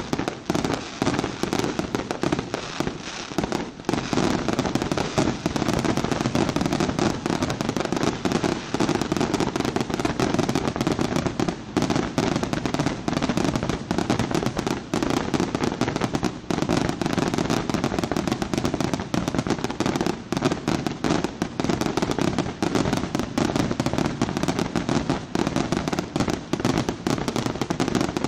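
Fireworks display: a dense, unbroken string of pops and bangs from shells bursting into crackling white and red stars.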